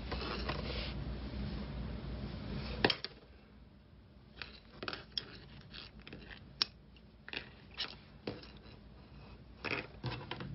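Faint handling sounds of tatting thread and a tatting shuttle: soft rustles and a scatter of small clicks and taps. A steady background hiss ends with a sharp click about three seconds in.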